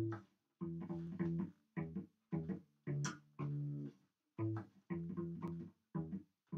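Cello played pizzicato: a phrase of about a dozen plucked low notes, each starting sharply and dying away.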